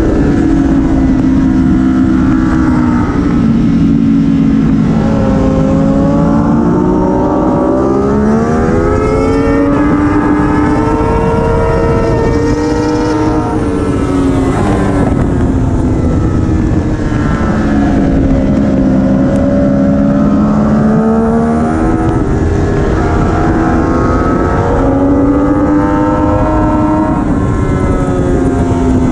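Triumph Daytona 675R's inline three-cylinder engine heard from on board at race pace, its pitch climbing as it accelerates and falling back as it slows for corners, several times over, above a steady rush of wind noise.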